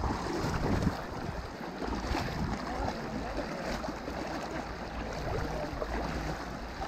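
People wading through knee-deep river water: legs pushing through the current, with steady splashing and sloshing.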